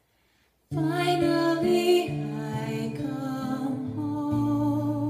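A woman singing with acoustic guitar accompaniment, starting abruptly under a second in after near silence.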